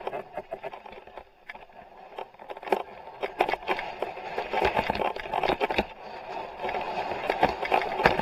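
Downhill mountain bike rolling fast over a dirt and rock track, tyres crunching and the bike clattering with frequent sharp knocks under a steady rushing noise. It gets louder and rougher from about three seconds in, over rocky ground.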